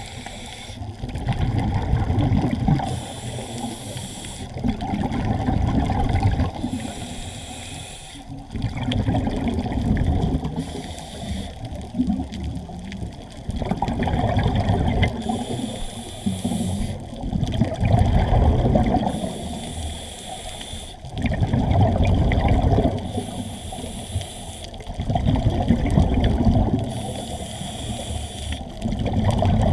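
Scuba diver breathing through a regulator underwater: a hiss on each inhale, then a loud bubbling of exhaled air, in a steady cycle about every four seconds.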